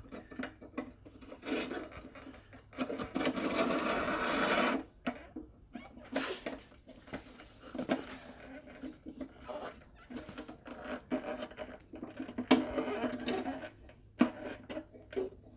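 Metal lawn mower handle tube scraping and rubbing as it is forced down over the handle bracket, with a longer scrape a few seconds in and scattered light knocks and clicks. The tube binds and won't slide all the way.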